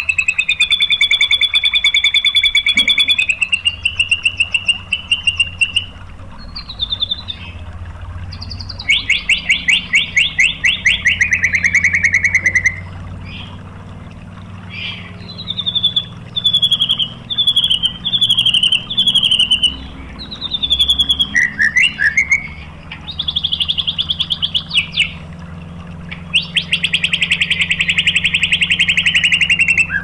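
White-rumped shama (murai batu) singing loud, fast trilling phrases of rapidly repeated notes, the rapid-fire 'tembakan' song that bird keepers prize. In the middle comes a string of about six short falling whistled notes, then further long trills near the end.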